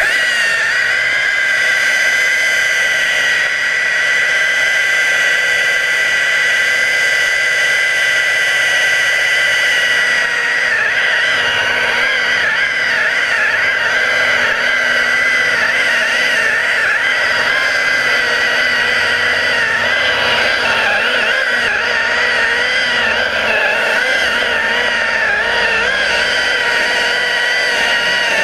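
Underwater chainsaw running with a loud, steady high whine that starts abruptly; from about ten seconds in its pitch wavers up and down as it cuts.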